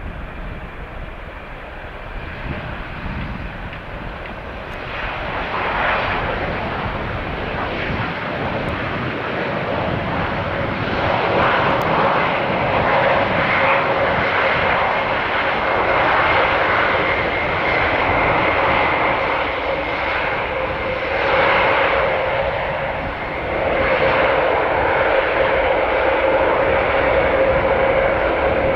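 Airbus A400M's four Europrop TP400 turboprop engines running at taxi power: a steady propeller drone with a held whining tone, growing louder over the first ten seconds or so as the aircraft comes nearer, then staying loud.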